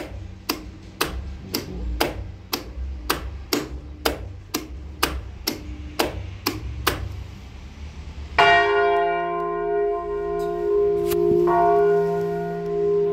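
Sharp, regular clicking about twice a second over a low hum, then, about eight seconds in, the first church bell, a 1952 Bastanzetti bell tuned to F, is struck and rings out loudly, with a second toll about three seconds later.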